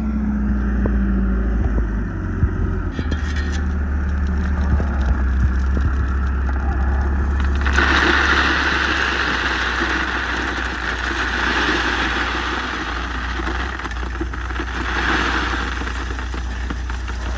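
A heavy equipment engine running steadily while a load of slag gravel is dumped into the drain-field trench, the stones pouring and rattling loudly from about eight seconds in and surging again near the end.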